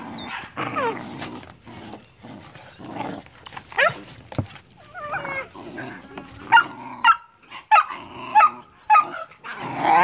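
Puppies whining and yipping, the calls sliding up and down in pitch, then a run of short sharp yips about twice a second in the second half.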